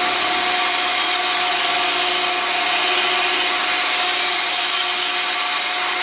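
Flexible-shaft carving handpiece running with a small burr grinding into a jade carving: a steady hiss over a constant motor tone.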